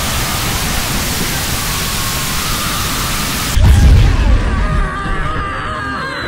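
Cartoon fight sound effects: a steady rushing hiss from a powered-up energy aura, then a sudden heavy boom about three and a half seconds in that dies away, with a faint falling whistle near the end.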